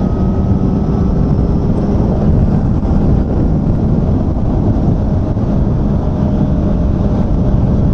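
Kawasaki ZX-4R SE's inline-four engine running at expressway speed, around 100 km/h and 6000 rpm, under a heavy rush of riding wind. It is a new engine in its running-in period.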